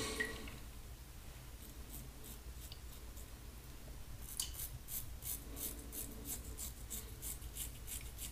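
Double-edge safety razor cutting stubble on the upper lip through lather: a run of short, quick scraping strokes, about four a second, starting about four seconds in.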